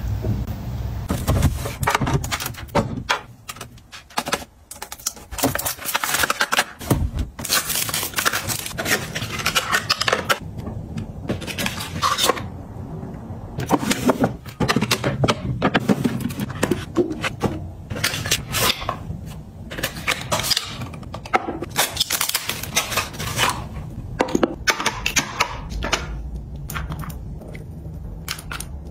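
Cosmetic jars, bottles and clear acrylic organizer drawers being handled and set down: a string of separate clicks, taps and light scrapes of plastic and glass.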